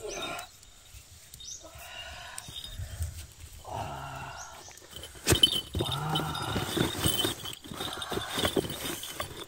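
Livestock bleating, a series of short pitched calls about every two seconds. A sudden knock comes just past halfway.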